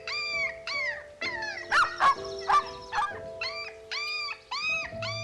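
Dog yelping in a quick run of high, arching cries, with a few louder, sharper barks about two seconds in.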